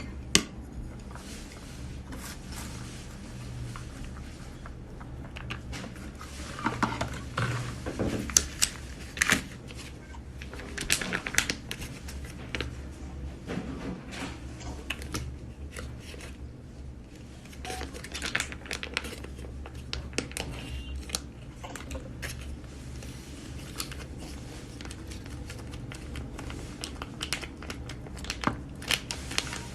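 Intermittent crinkling and rustling with scattered small clicks and taps, heard over a steady low hum. These are handling noises from a solo meal of instant self-heating hotpot.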